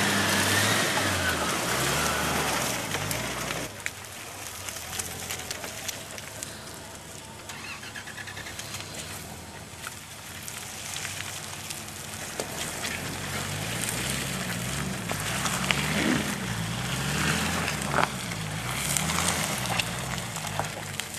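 Nissan Patrol 4x4's engine working at low speed through deep mud ruts. It is loudest as it passes close at the start, drops away as it heads down the rut, then rises again with its revs going up and down in waves.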